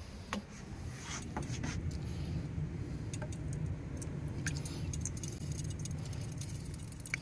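Pizza dough frying in hot oil in a small frying pan: a few scattered pops at first, thickening into a rapid crackling and spitting in the second half, over a steady low rumble.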